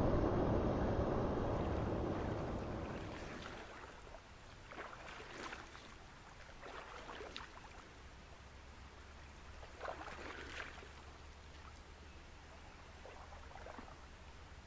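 River rapids rushing over rocks, fading out over the first few seconds. Then quiet shallow water with a few small splashes and sloshes from someone wading.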